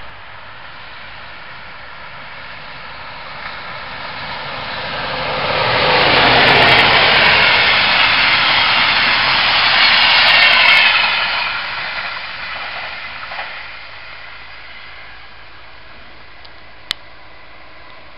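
Regional train of red double-deck coaches passing at speed: its rumble and wheel-on-rail rush build up, are loudest for about five seconds in the middle, then fade away.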